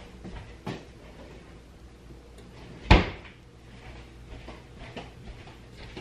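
A cupboard door shutting with a single sharp bang about three seconds in, with a few faint knocks and clicks around it.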